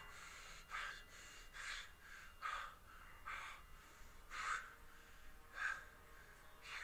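A man breathing heavily in short, sharp breaths, about one a second.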